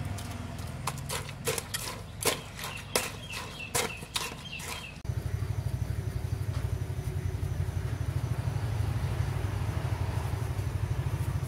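Metal strainer and pot clinking and knocking as pounded crab is pressed through by hand. About five seconds in this gives way to a small engine running with a steady, fast low throb.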